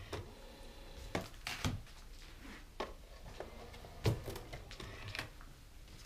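A string of faint, separate clicks and knocks, about ten of them, the loudest about four seconds in, from the Aiwa ADN-1 as it switches over to CD and its disc mechanism engages.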